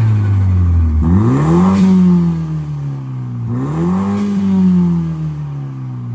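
MINI F56 John Cooper Works 2.0-litre turbo four-cylinder revved twice through its exhaust: each time the engine climbs quickly from idle, then falls slowly back.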